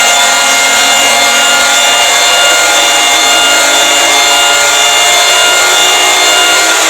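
Fictional Emergency Alert System alarm: a loud, harsh, heavily distorted wall of layered electronic tones, with a high beep pulsing about twice a second and low tones slowly gliding upward.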